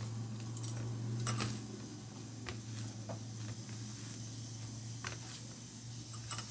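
Hands mixing a crumbly milk-powder peda mixture on a steel plate: soft rustling with a few light clicks against the metal, over a steady low hum.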